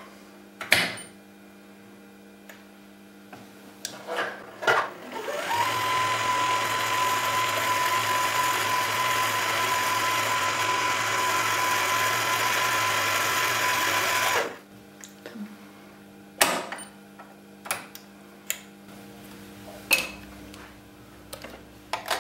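Janome DC 4030PR sewing machine winding a bobbin: the motor runs at an even speed with a steady whine for about nine seconds, starting about five seconds in and stopping suddenly. Sharp clicks of the thread and bobbin being handled come before and after.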